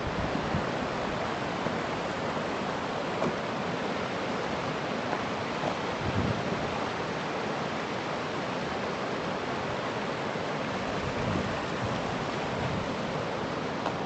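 Shallow river water rushing over smooth bedrock below a waterfall: a steady, even rush.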